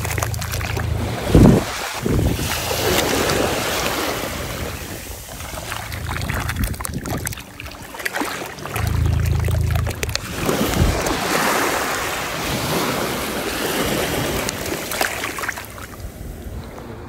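Shallow seawater washing and sloshing over wet beach sand while a hand scoops, squeezes and presses the sand in the water, with wind rumbling on the microphone at the start and again about nine seconds in. A sharp thump comes about one and a half seconds in.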